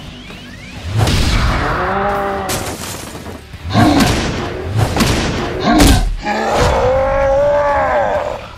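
Cartoon fight sound effects: heavy booming impacts with crashing debris about one, four and six seconds in. Between the hits come long vocal cries whose pitch rises and then falls.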